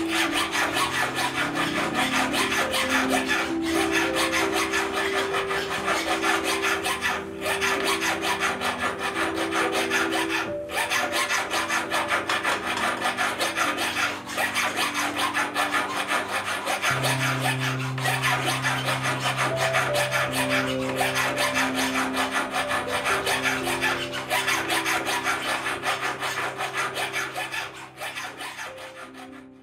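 Hand file rasping rapidly back and forth against the inside of a 14k champagne gold ring band, rounding the inner surface for a comfortable fit. The filing fades out near the end, with soft music underneath.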